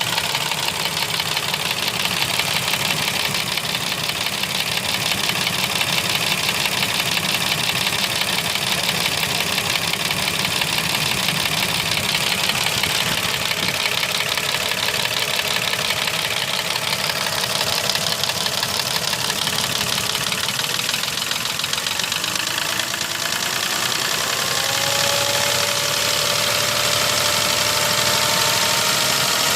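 Mercedes M112 V6 engine running at idle with a steady, rapid knock, the sign of scored cylinders and pistons. A faint whine rises in about three-quarters of the way through.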